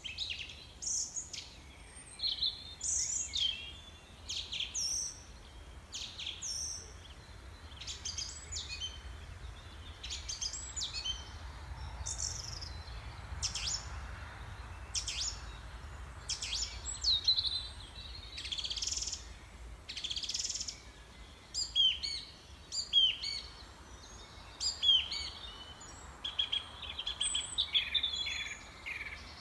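Small songbirds chirping and singing with a continuous run of short, high calls, many sweeping down in pitch. The calls are loudest in the second half.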